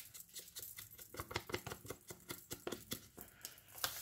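Faint, irregular rustles and light taps of a folded book page being handled and dabbed with a small ink dauber, with one slightly louder tap near the end.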